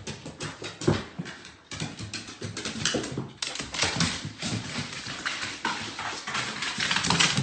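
A pet dog making sounds, in a busy run of short, irregular noises.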